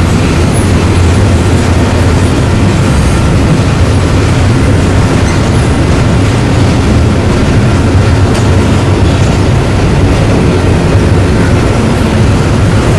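Freight train rolling past close by: a loud, steady rumble of steel wheels on rail.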